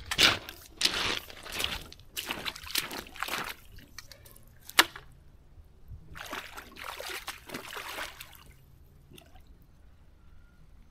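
Legs splashing and sloshing through shallow river water as a person wades out, in two runs of irregular splashes with a single sharp knock just before the second; then only the faint background of the river.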